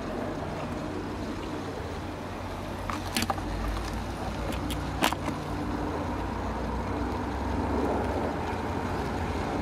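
Steady low rumble of a car driving on the road beside the tracks, swelling slightly near the end, with two sharp knocks about three and five seconds in.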